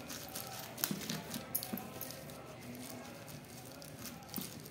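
Scissors cutting through a plastic courier mailer bag, with irregular snips, clicks and the plastic crinkling.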